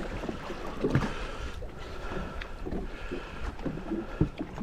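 Wind and water noise on a jet ski drifting at sea, with a few small knocks from handling gear.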